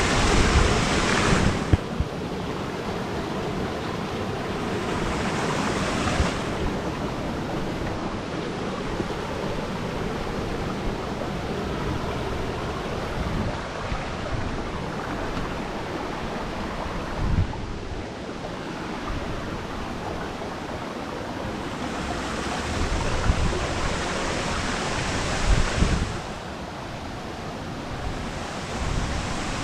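Steady rush of falling water from a waterfall, swelling louder at times, with a few low thumps of wind on the microphone.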